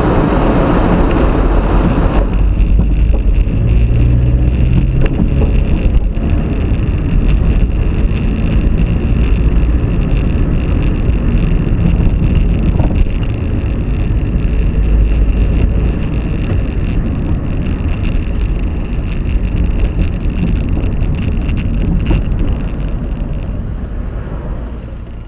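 Steady low rumble of a vehicle on the move, engine and road noise heard inside the cabin through a dashcam's built-in microphone, with a faint steady high whine over it. The rumble eases somewhat near the end.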